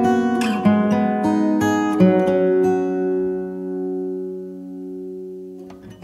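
Background music on acoustic guitar: plucked notes, then a chord about two seconds in left to ring and fade away.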